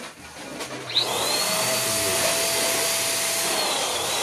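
Electric balloon pump switched on about a second in, running with a steady rush of air and a held whine. Its pitch sags near the end.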